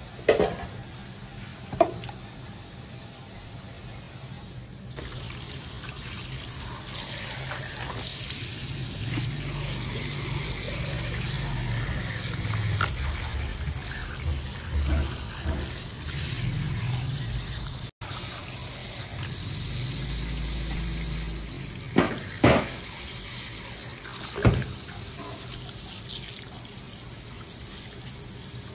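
Tap water running and splashing over a skinned pufferfish carcass in a stainless-steel sink as it is rinsed by hand, growing louder about five seconds in. A few sharp knocks stand out near the start and again late on.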